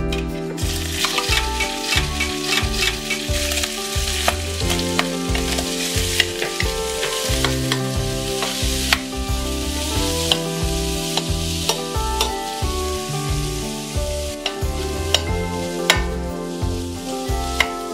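Diced food sizzling in hot olive oil in a stainless steel paella pan, starting about half a second in, while a metal spatula stirs it with sharp scraping clicks against the pan.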